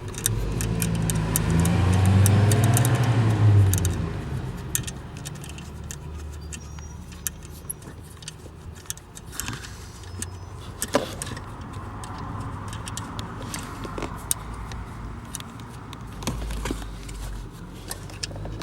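Light metallic clicks and jingles of tools and bolts being handled while panel bolts are tightened, scattered throughout. A low vehicle engine hum is loudest in the first four seconds, then fades to a faint rumble.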